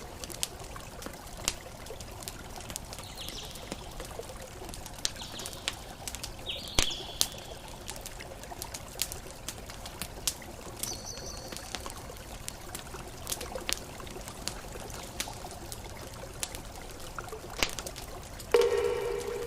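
Crackling campfire, irregular sharp pops and snaps over a steady wash of ocean waves. There are a few short, high bird chirps, and a louder pitched bird call near the end.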